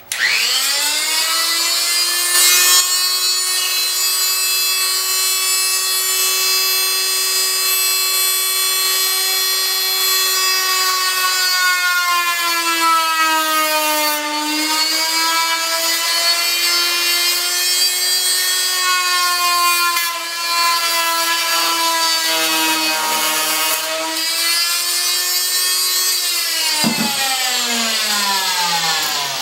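Fein MultiMaster oscillating tool switched on, its motor whine rising quickly to a steady pitch as it cuts plexiglass. The pitch sags under load about halfway through and again later, and the motor winds down with a falling whine near the end.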